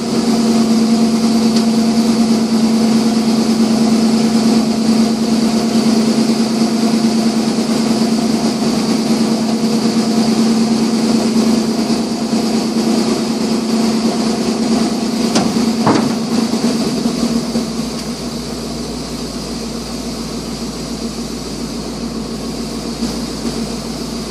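1987 Ford F600 dump truck's 370 cubic-inch gasoline V8 running with a strong steady hum while the hydraulic dump box is lowered. A single knock comes about two-thirds of the way through, then the steady hum drops away and the engine runs on more quietly.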